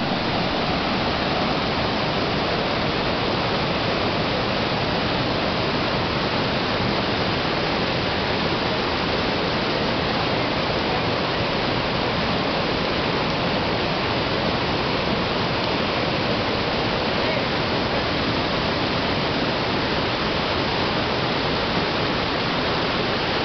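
White-water river rapids rushing over boulders: a loud, steady rush of water.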